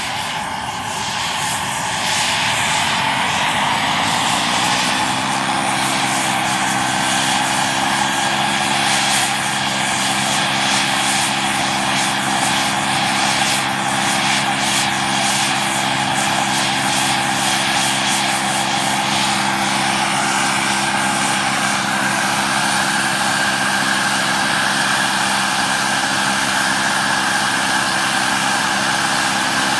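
Radio-controlled scale BK 117 helicopter model spooling up on the ground: its drive whine climbs in pitch over the first few seconds as the main rotor gathers speed, then holds a steady hum with rotor whoosh. A higher tone in it steps up about twenty seconds in.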